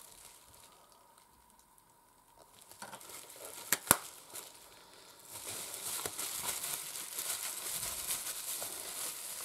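Packaging crinkling and rustling as items are handled, after a nearly silent start and a single sharp click a little before the middle.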